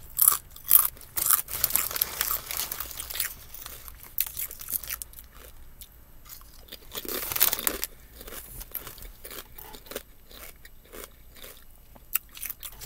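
Kettle-cooked potato chips crunching as they are bitten and chewed: runs of sharp, crisp crunches with short pauses between mouthfuls.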